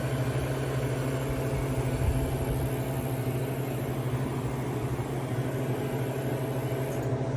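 Home freeze dryer running with a steady low machine hum from its vacuum pump, near the end of a long drying cycle. The high hiss drops away about seven seconds in.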